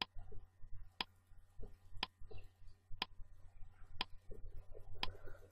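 Countdown timer tick sound, one sharp tick about once a second, over a faint steady low hum.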